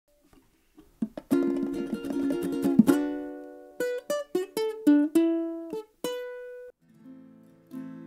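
Music on a plucked string instrument: a few strummed chords, then single picked notes, with a softer sustained layer coming in near the end.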